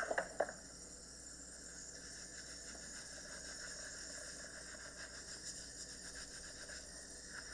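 Bar of soap rubbed over wet hair, lathering it: a faint, steady wet hiss.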